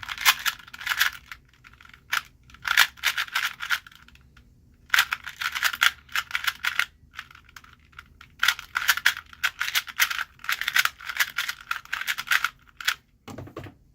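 Plastic 2x2 speed cube being turned fast, a rapid rattle of clicking layer turns in four spurts with brief pauses between them.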